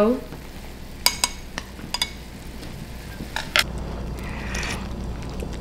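Wooden chopsticks stirring ramen in a pan, tapping against the pan a few times, and a spoon clinking. Near the end, a soft sip of broth from the spoon.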